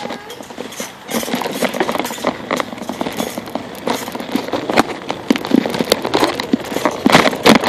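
Bicycle ride on pavement: a steady rushing noise with many irregular knocks and rattles from the bike and the handheld phone being jostled as it rolls, with a few heavier knocks near the end.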